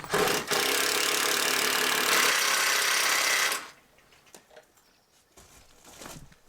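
A power tool running steadily for about three and a half seconds, then cutting off sharply, followed by a few faint knocks.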